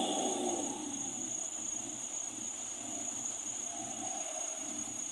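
Insects shrilling steadily in a high, unbroken drone, over a faint low rumble.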